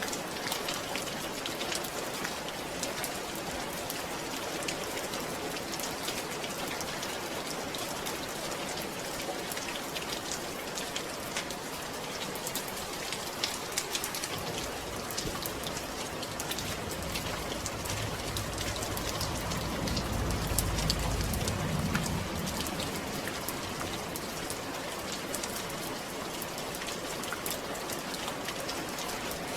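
Steady rain falling on a surface, a dense hiss full of fine drop ticks. About two-thirds of the way through, a low rumble swells and fades over several seconds.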